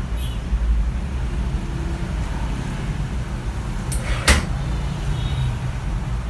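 Steady low rumble of a running engine, with one sharp click about four seconds in as the emergency stop mushroom button on a generator ATS-AMF control panel is worked by hand.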